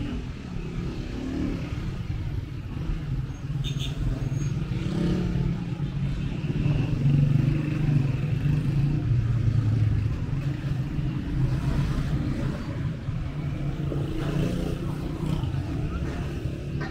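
Street traffic: motor vehicle engines running as vehicles pass on the street. A motorcycle's engine is loudest about seven to ten seconds in.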